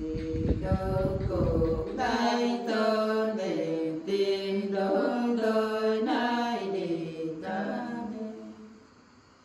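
Women singing a Nùng folk song unaccompanied, in slow held notes that slide up and down between pitches, fading out near the end. Low thumps rumble under the first two seconds.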